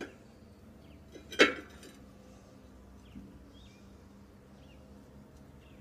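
A steel disc harrow blade is set onto the stacked gang with a light click, then lands with one sharp metallic clank and a brief rattle about a second and a half in. A small bird chirps again and again in the background.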